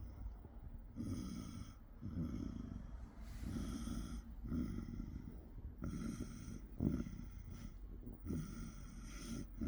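Snoring: short rasping snores about once a second, some carrying a high whistling tone.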